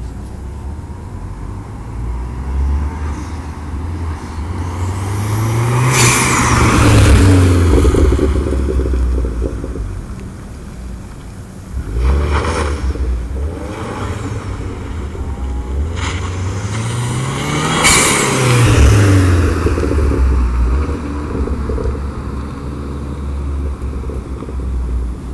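Pontiac Solstice GXP's turbocharged 2.0-litre four-cylinder making two loud flybys. Each time, the engine climbs in pitch as the car accelerates toward the microphone, then drops in pitch and fades as it passes and pulls away. A sharp hiss as it passes is the aftermarket Synapse Synchronic blow-off valve venting.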